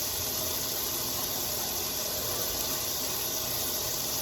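Water running steadily from a kitchen tap into a sink: an even, unbroken hiss.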